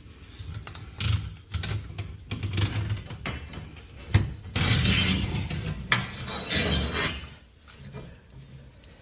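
Metal parts clanking and clattering as garage door spring hardware and tools are handled, with a sharp knock about four seconds in and a busier stretch of rattling just after it.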